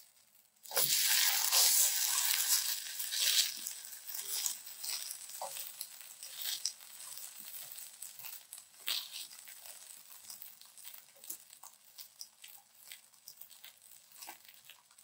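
Folded quesabirria taco frying in a pan: a sizzle that starts suddenly about a second in and fades after a few seconds into scattered crackling and popping.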